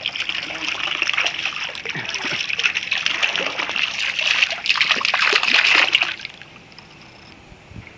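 A jet of water spraying up and falling back in a steady spatter onto the surface of a swimming pool. The splashing stops suddenly about six seconds in.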